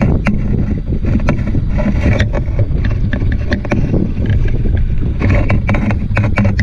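Small aluminum johnboat under way: a steady low rumble of water and wind on the microphone, broken by irregular sharp knocks and clicks.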